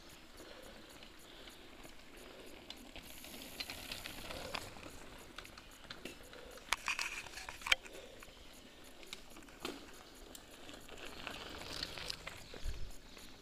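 Mountain bikes on a gravel dirt track: faint outdoor noise with scattered sharp clicks and crunches. Near the end a bike rolls past close by, its tyres crunching on the gravel.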